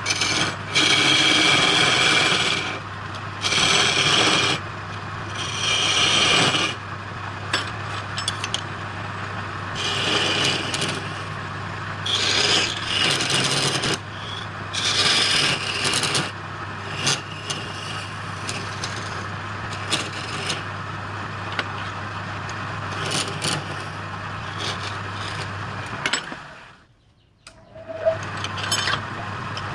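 Wood lathe running with a steady hum while the spinning wood is worked in repeated scraping passes of a second or two each. The sound drops out briefly near the end.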